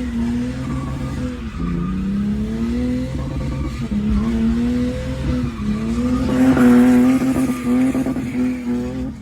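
BMW E46 engine revving in repeated surges, the pitch climbing and dropping back about every one and a half to two seconds, as the car is driven hard and drifted. Tyre squeal rises over it, loudest about two thirds of the way in.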